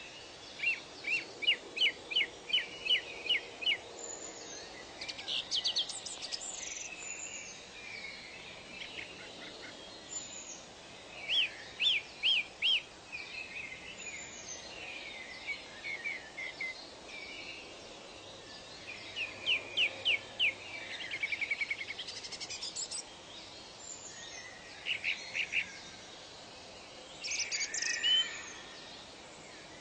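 Several birds singing: runs of quick repeated chirps and trills recur every few seconds, with short high whistles in between, over a steady background hiss.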